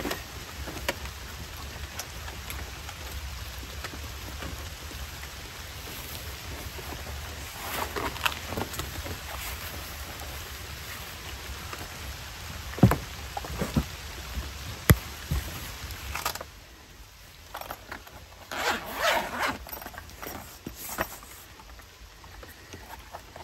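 A folding solar panel's fabric case being handled and opened: fabric rustling and zipping, with two sharp knocks partway through as the panel is unfolded, and a louder burst of zipping and rustling near the end as the cable pocket is opened.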